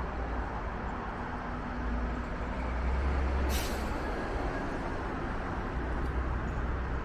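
Steady road traffic: a continuous tyre and engine rumble from passing vehicles. About three and a half seconds in, a short sharp hiss cuts through.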